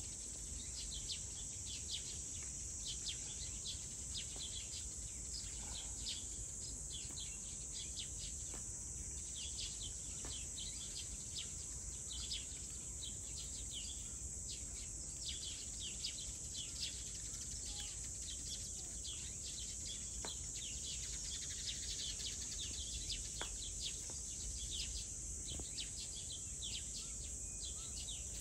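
Small birds chirping in quick, short repeated notes throughout, over a steady high hiss and a low background rumble.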